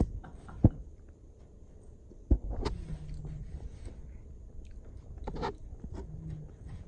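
Sheets of newspaper being folded and crinkled on a tabletop, in short scattered rustles, with two sharp knocks about half a second and two and a half seconds in.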